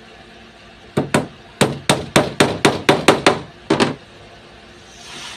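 Hammer blows on wood: two strikes, a quick run of about eight at roughly four a second, then two more. A short swell of hiss near the end.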